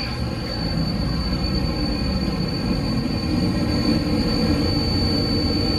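Bryant gas furnace's inducer fan motor running with a steady, high-pitched squeal over a low rumble. The squeal comes from the motor's worn bearing, which the owner thinks dust has got into.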